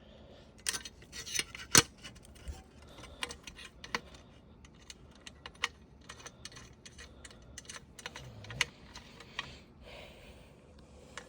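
Irregular small clicks, taps and light scrapes of hand work on the parts of a small exhaust fan motor, with a sharper knock about two seconds in.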